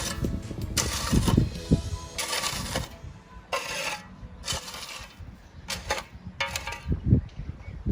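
Irregular scraping and sharp clinks of stone and tools being worked on a paving job, several short bursts of different lengths.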